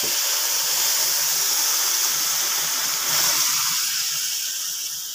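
Hot milk poured into a wok of vermicelli fried in oil, sizzling and hissing as it hits the hot pan, easing off near the end.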